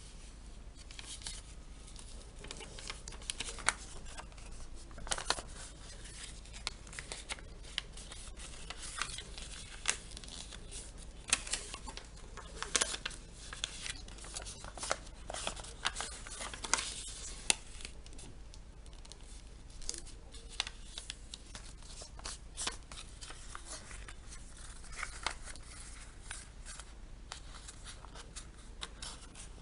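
Paper being cut and handled by hand: irregular short snips, clicks and rustles, with several sharper snips near the middle.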